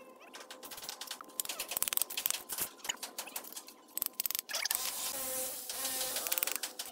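Steel trowel scraping and tapping on mortar and clay bricks, with bricks clicking as they are set in place on a brick column: a run of short, sharp scrapes and knocks, joined by a high buzzing hiss about halfway through.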